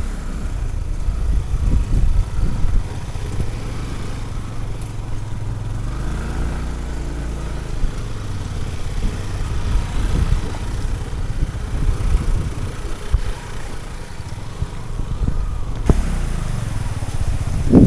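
Motorcycle engine running during a ride, with heavy low rumble of wind on the microphone. The engine note rises and then falls around the middle.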